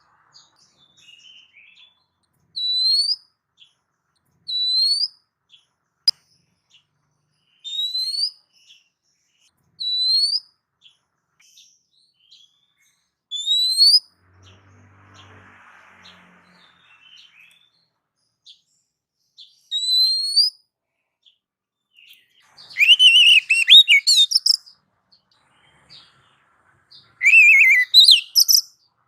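Oriental magpie-robin (kacer) singing: single clear, rising whistled notes about every two seconds, then two louder bursts of rapid, varied song near the end.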